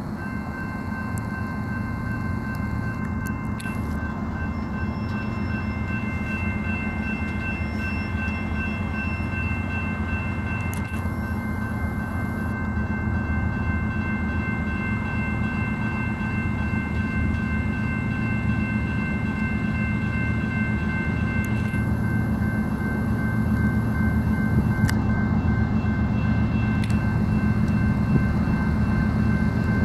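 BNSF train's diesel locomotives approaching, a low steady rumble that slowly grows louder, with a few thin steady high-pitched tones above it.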